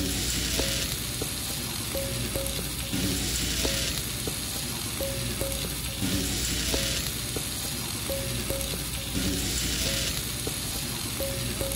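Pork belly and kimchi fried rice sizzling on a griddle pan, stirred and scraped with a spatula, with a steady hiss and light knocks.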